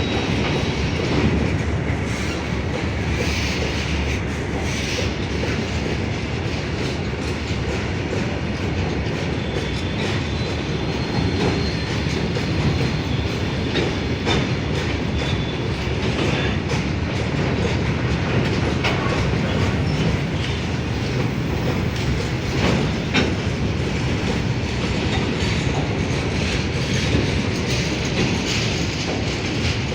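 Freight train rolling past, a steady rumble of wagons with wheels clacking over the rail joints. A faint high squeal comes in briefly about ten seconds in.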